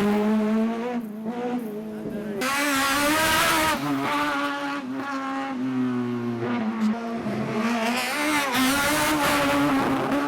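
Small four-cylinder Fiat-engined hatchback slalom car driven flat out, its engine revving hard with the revs rising and falling between bursts of acceleration. It is loudest about two and a half seconds in and again near eight seconds.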